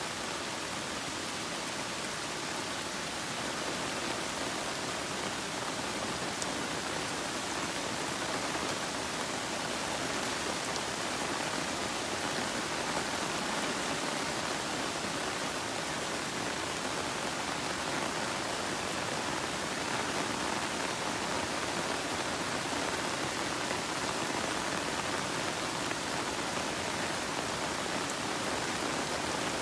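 Steady rain falling on broad taro leaves and garden plants: an even rushing patter that grows slightly louder a few seconds in.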